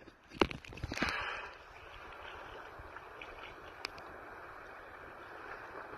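A few sharp knocks and a short splash in the first second and a half, typical of a paddle striking a kayak hull and the water, then a steady hiss of wind and water with one more light click near the middle.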